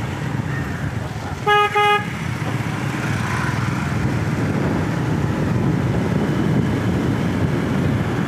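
Motorcycle running along a lane with a steady engine and wind noise. A vehicle horn beeps twice in quick succession about a second and a half in, two short toots that are the loudest sounds.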